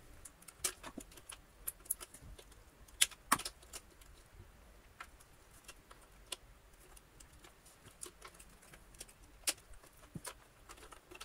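Irregular small clicks and light rattling of spade wire terminals being pulled off and pushed onto a Dyson DC50 brushroll circuit board by hand, with a few sharper clicks about three seconds in and near the end.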